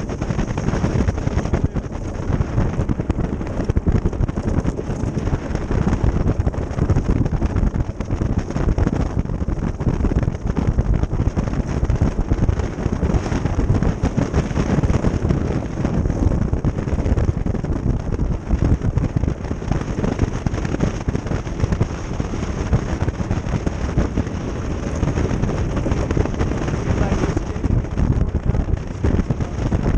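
Ice boat runners rumbling and crackling steadily over the lake ice as the boat sails along, with wind buffeting the microphone.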